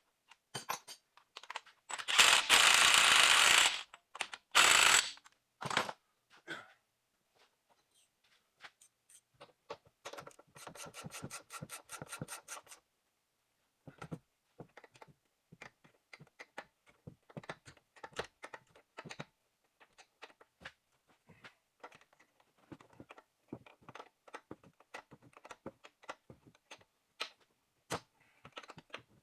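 Air impact wrench hammering on the truck's front axle nut in two loud bursts, about two seconds long and then a short one. A ratchet then clicks rapidly for a few seconds, and scattered clicks and clinks of hand tools and small bolts follow.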